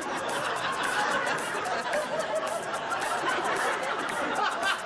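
Studio audience chattering and laughing, a steady mix of many voices.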